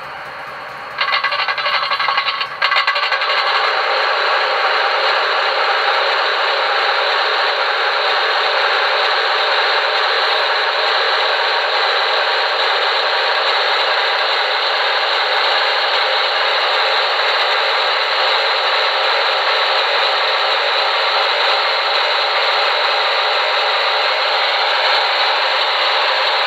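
QSI Maxx Traxx steam-sound effect of water being filled into a steam locomotive's tender: a steady rushing noise that comes in about a second in and settles to an even level after about three seconds. It is played through a small speaker, with little bass.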